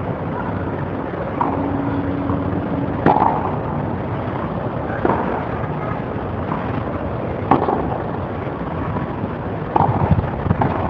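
Tennis ball struck by racket strings during a doubles rally on a clay court: a handful of sharp pops, roughly every two to two and a half seconds, over a steady background hiss.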